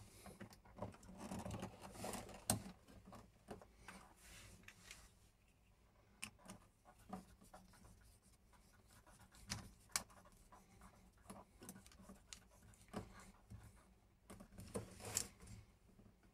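Faint, scattered clicks and scratches of a small precision screwdriver working a wire terminal screw on a wall socket, with light handling of the socket's metal mounting frame.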